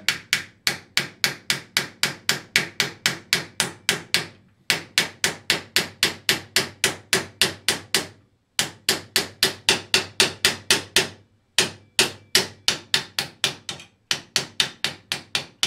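Ball-peen hammer tapping on a metal bearing driver, about four to five quick, sharp metal-on-metal strikes a second in runs broken by short pauses. It is pressing a snug-fitting ball bearing into the arbor housing of a Rockwell Model 9 table saw.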